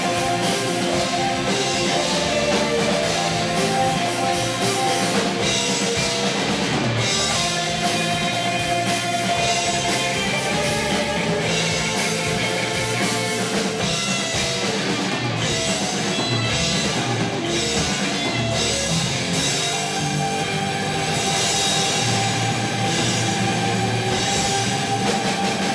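Rock band playing live: electric guitars, bass guitar and drum kit in an instrumental passage.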